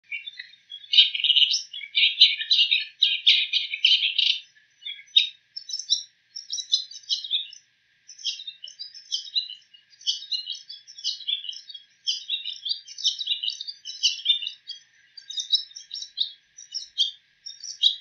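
Bull-headed shrike singing a rapid medley of high chattering phrases that mimic the calls of other birds. The notes come in a dense run for about the first four seconds, then in shorter phrases with brief pauses between them.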